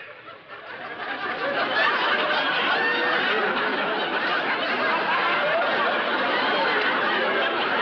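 Audience laughter, swelling over the first second or two and then holding steady.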